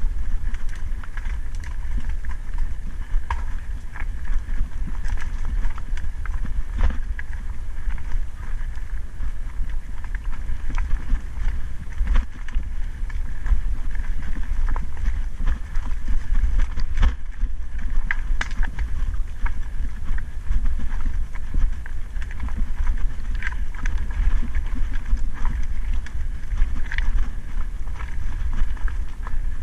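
Mountain bike riding down a rocky trail: wind rumbling on the microphone, with tyres crunching over loose stones and the bike rattling and knocking at every bump.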